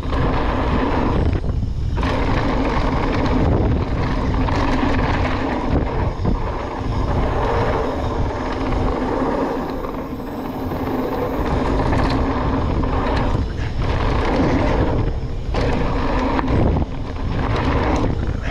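Mountain bike ridden fast down a dirt trail: a steady rush of wind buffeting the camera microphone, with the rumble and rattle of the tyres and bike over the dirt.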